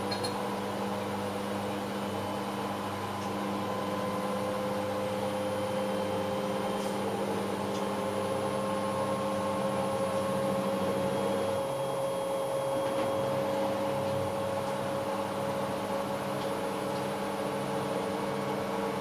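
Hoover H-Wash 500 washing machine running a synthetic wash: a steady motor hum, one tone of which slowly rises in pitch for several seconds and then holds, with the low hum changing about two-thirds of the way through.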